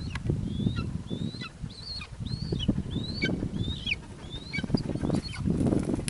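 Golden eagle giving a run of short, high yelping calls, about two a second, each rising then dropping, as she is lifted off her kill onto the glove; the handler takes her for a little annoyed at not finishing the meal. Rustling brush and thumps sound underneath.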